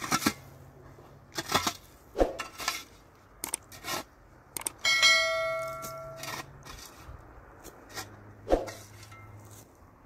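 Metal shovel digging and scraping dry, stony earth in irregular strokes. About five seconds in, one stroke sets the blade ringing with a clear bell-like tone for over a second.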